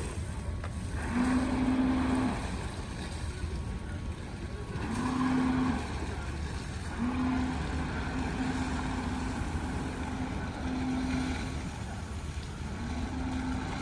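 Steady low engine rumble with a humming drone that swells in and fades for about a second at a time, several times over.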